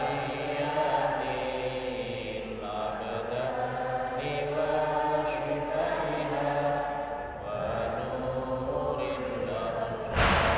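Slow, drawn-out male chanting with long held notes. Near the end a brief loud flap as book pages are riffled close to the microphone.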